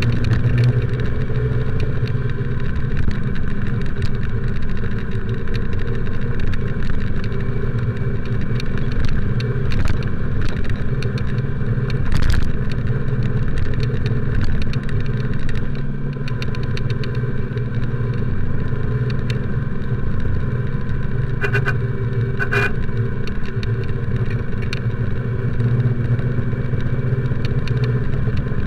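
Motorcycle engine running steadily while riding, heard from the rider's action camera. Near the end come two short horn beeps about a second apart.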